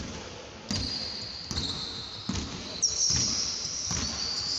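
Basketball being dribbled on a hardwood court, a low bounce about every three-quarters of a second. A high steady whine runs over it and gets louder and higher a little before halfway.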